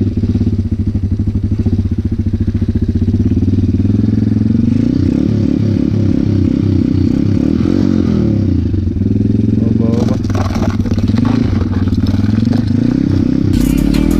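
Regulmoto Seven Medalist 150E pit bike's single-cylinder four-stroke engine running as the bike rides over river ice, the revs rising and falling from about five seconds in. From about ten seconds in a crackling clatter joins it.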